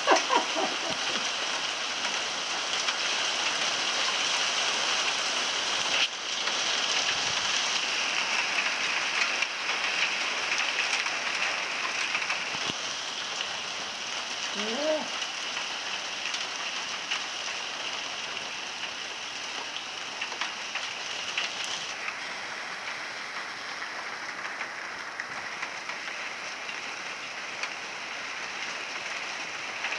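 Small hail pelting a concrete patio: a dense, steady hiss of countless tiny impacts, easing a little about two-thirds of the way through.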